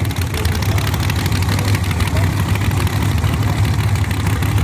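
Drag-racing muscle car's engine idling at the starting line, a steady, deep, loud rumble.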